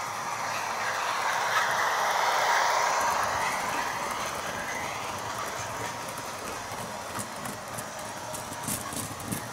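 HO scale model train rolling past on the track: a rushing rumble of wheels that swells to a peak about two to three seconds in and then fades. Light clicking follows near the end.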